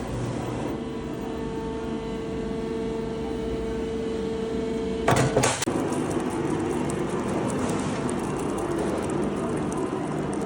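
Steel door-frame production machinery running with a steady hum, then a sharp metallic clank about five seconds in, after which the machine runs on with a rougher, noisier sound.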